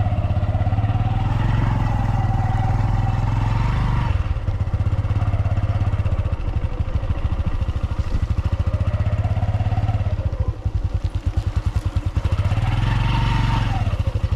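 Motorcycle engine running under way on a rough dirt track, its pitch rising and falling several times as the throttle opens and closes.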